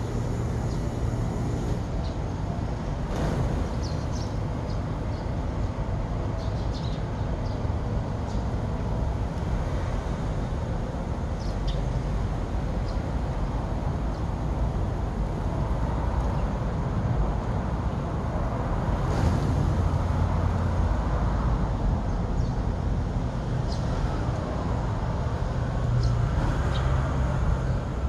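Steady low rumble of urban street noise, with a few faint, short high chirps from a flock of Eurasian tree sparrows scattered through it.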